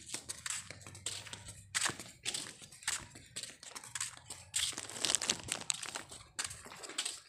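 Footsteps crunching and scuffing on gritty concrete paving while walking, irregular crunchy scrapes about twice a second.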